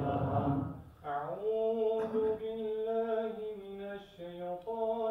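Congregation chanting together in many voices, fading out just under a second in; then a single voice starts a slow, melodic religious chant with long held notes that glide from one pitch to the next.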